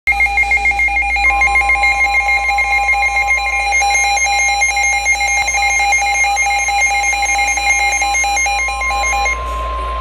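Midland weather alert radio sounding its warning alarm: rapid beeping that jumps between two pitches, with the steady NOAA Weather Radio warning alert tone joining about a second in. This signals a severe thunderstorm warning. The beeping stops shortly before the end, with a low hum underneath.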